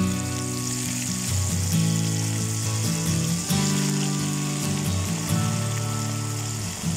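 Food deep-frying in a pot of hot oil: a steady bubbling sizzle. Guitar music plays along with it.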